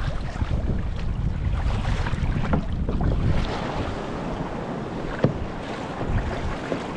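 Wind buffeting the microphone over water lapping and splashing around a kayak, with one sharp knock about five seconds in. The wind rumble is heavier in the first half.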